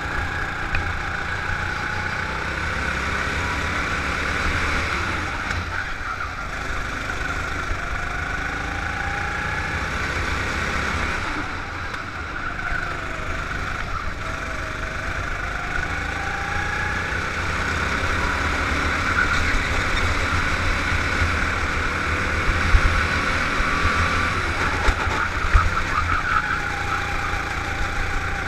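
Go-kart engine running at speed as the kart laps the track, its pitch falling and rising again and again through the bends, over a steady low rumble.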